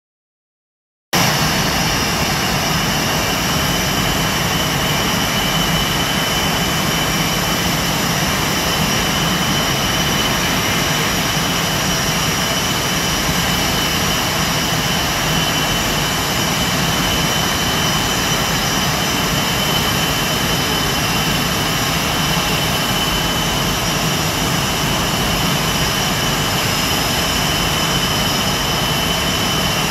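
Blue Angels F/A-18 Hornet jet engines idling on the ramp: a loud, steady roar with a steady high whine over it, cutting in about a second in.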